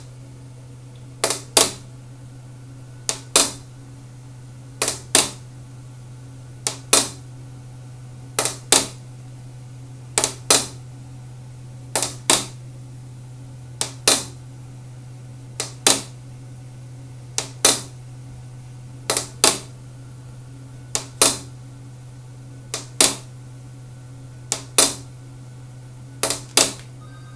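A PR700 machine making its abnormal noise: a pair of sharp clicks repeating about every 1.8 seconds over a steady low hum.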